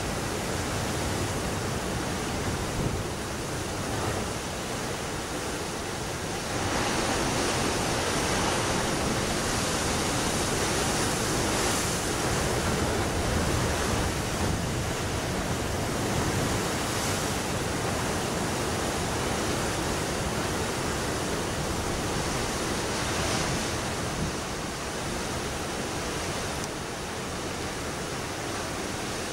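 Sea surf rushing and washing against shoreline rocks: a steady hiss that swells and eases every few seconds, a little louder from about seven seconds in.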